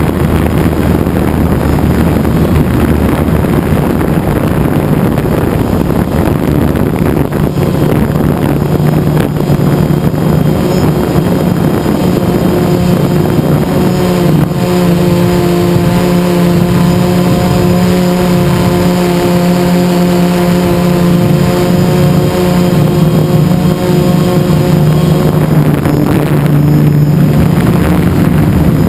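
Electric motors and propellers of a DJI Phantom quadcopter, recorded by the GoPro on its own frame: a loud, steady buzz. A set of higher steady tones joins in about halfway through and fades out a few seconds before the end.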